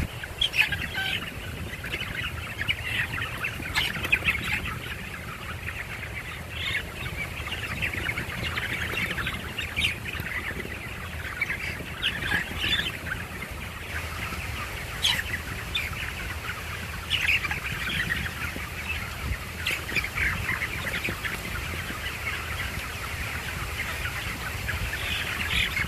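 A group of young chicks peeping continuously, many short high chirps overlapping, with a low steady rumble underneath.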